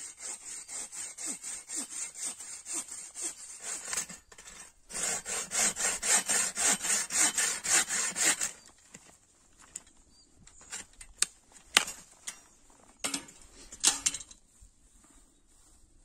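Fast rhythmic scraping strokes, about four a second, with a short break about four seconds in, stopping about eight and a half seconds in; then a few scattered sharp clicks.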